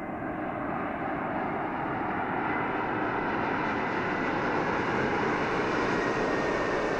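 Airbus A320-232 jetliner's IAE V2500 turbofan engines at landing-approach power as it passes low over the runway and flares, a steady jet rush with a faint whine that grows gradually louder as the aircraft comes closer.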